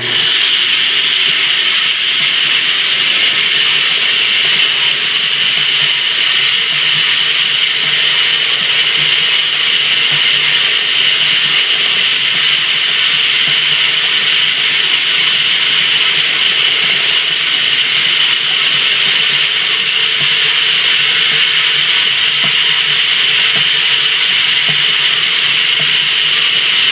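Stainless steel star roller drum with a narrow hot glue seam, running with a pile of pyrotechnic stars tumbling and sliding inside: a steady hiss that starts abruptly when the roller is switched on.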